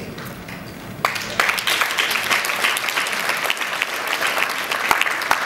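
Audience applauding, the clapping starting about a second in and carrying on steadily.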